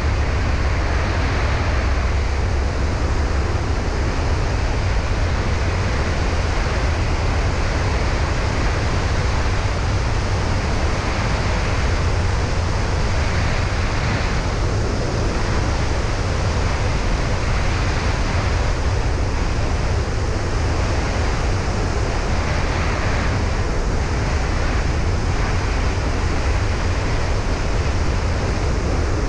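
Steady, low rush of wind buffeting an action camera mounted on the outside of a single-engine light aircraft in flight.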